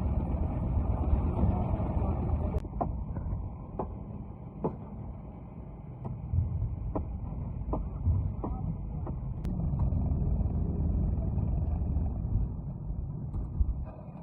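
A concrete mixer's engine running steadily, with a run of sharp knocks, roughly one a second, from a few seconds in.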